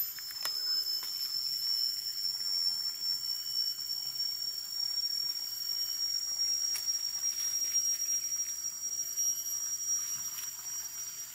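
Insects droning in a steady high-pitched chorus that rises slightly in pitch and grows a little louder, with a few faint clicks.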